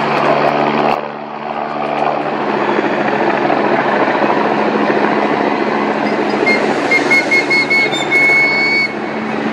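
Firefighting helicopter hovering low over the sea with a water bucket slung beneath: the rotor and turbine run steadily, with a steady low hum. The sound changes abruptly about a second in. Near the end, a high tone repeats several times.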